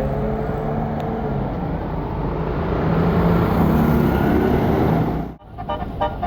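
A bus engine running, growing louder about three seconds in as it comes close. Near the end, after a brief drop, a multi-tone telolet horn starts sounding quick on-off chords.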